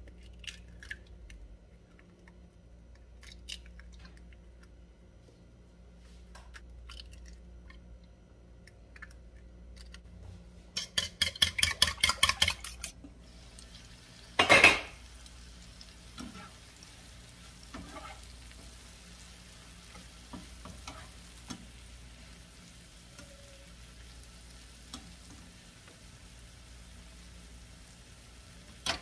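Kitchen cooking sounds: about eleven seconds in, a two-second run of quick utensil strokes, about eight a second, against a dish. A single loud clatter comes about halfway through. The rest is faint sizzling of sliced hot dog, mushrooms and tomato frying in a pan, with a few small utensil knocks.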